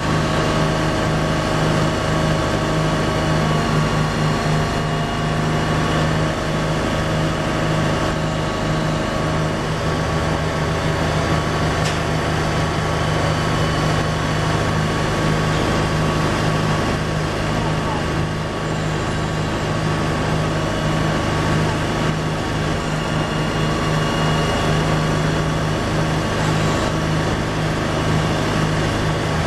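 An engine running steadily at constant speed: a loud low drone with a few steady higher tones over it.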